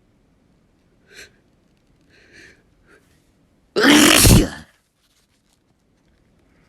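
A person sneezes once, loudly, about four seconds in, after a few faint short breaths leading up to it.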